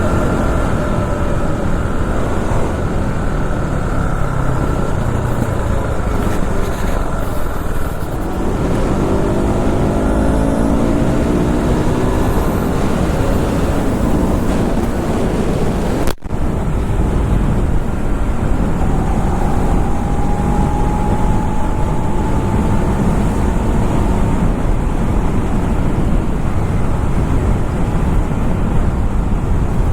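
KTM RC390 single-cylinder motorcycle riding along a road, engine running under a steady rush of wind on the helmet camera's microphone; the engine note climbs about eight seconds in, and the sound briefly cuts out about halfway through.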